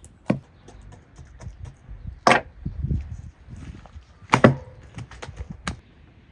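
Knife work on a raw bull leg on a wooden cutting board: a few sharp knocks and thuds of knife and meat against the wood, the loudest about two and four seconds in, with faint clicks between.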